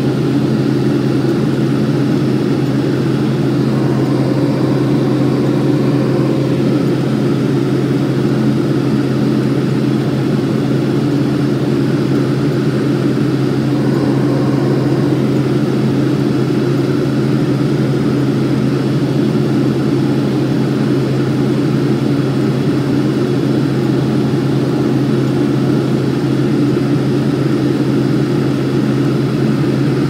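John Deere combine harvester running steadily while harvesting wheat: a constant low drone that holds the same pitch throughout.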